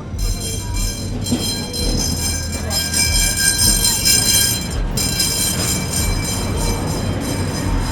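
Tatra T2 tram running past, a low rumble under a high-pitched whine of several steady tones that drops out briefly about five seconds in.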